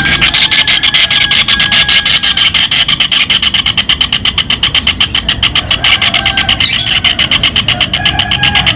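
Kingfisher (tengkek udang) giving a long, fast rattling call series of about ten sharp notes a second, unbroken.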